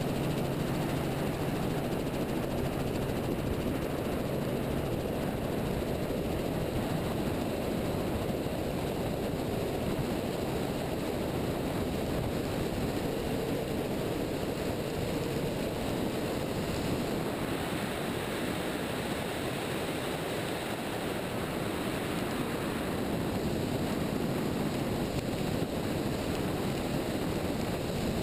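Steady rushing noise of a helicopter taking off and climbing, heard through an outside-mounted camera: rotor and engine noise mixed with heavy wind over the microphone. A low steady tone from the helicopter shows faintly in the first few seconds.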